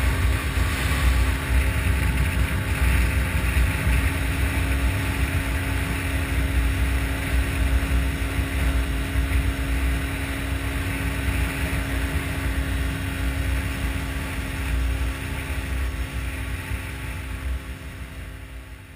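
Small air-cooled single-cylinder Yamaha dual-sport motorcycle engine running steadily at cruising speed, with wind rushing over the camera; the sound fades out near the end.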